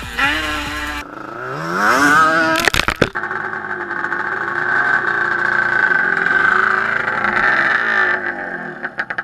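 Yamaha Banshee 350 two-stroke twin with Toomey T5 expansion-chamber pipes and silencers, revving. A quick rising rev comes just after a second in, a few sharp cracks follow around three seconds, then the engine holds at steady revs before easing off near the end.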